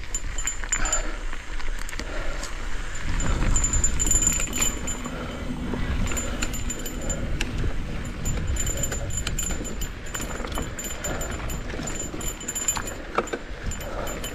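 Cannondale Scalpel full-suspension mountain bike riding a dirt singletrack descent: steady tyre and wind rumble, with the bike rattling and clinking over the rough ground.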